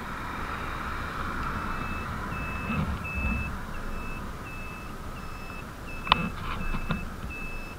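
Electric motorcycle's turn-signal buzzer beeping evenly, about one and a half to two beeps a second, starting about a second and a half in, over the steady hiss of riding noise. A single sharp click about six seconds in.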